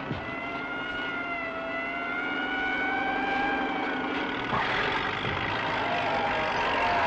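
Vehicle engines running, with a siren wailing in a slowly rising and falling pitch; about four and a half seconds in, a rougher rush of noise joins and the sound gets louder.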